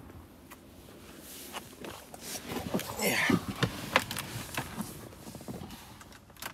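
Rustling, creaks and scattered soft knocks of a person climbing into a low sports car's driver's seat, loudest about three seconds in as they drop into the seat.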